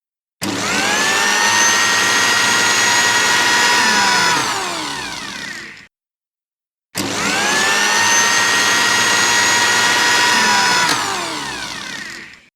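Electric kitchen blender switched on twice: each time the motor whine rises quickly to a steady high speed, runs for about four seconds, then falls away as the motor is switched off and spins down to silence.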